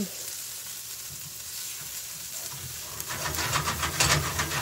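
Diced onion and garlic sizzling steadily in a frying pan. From about three seconds in, a spatula stirs them with quick scraping strokes against the pan.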